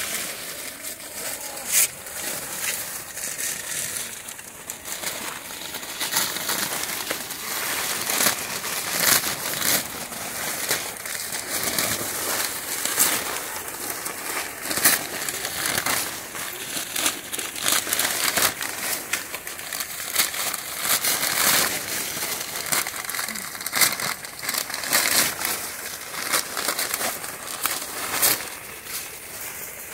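Newspaper wrappings being pulled and torn off grape bunches on the vine: a dense, irregular crackling and crinkling of paper, with sharp rips here and there.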